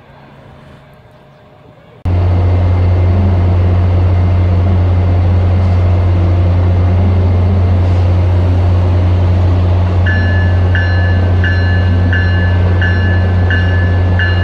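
MBTA commuter-rail diesel locomotive running steadily, a loud low drone that starts suddenly about two seconds in. About ten seconds in, its bell begins ringing, a little more than one strike a second.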